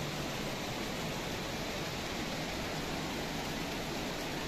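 Steady rushing noise of heavy rain and running water, with no breaks.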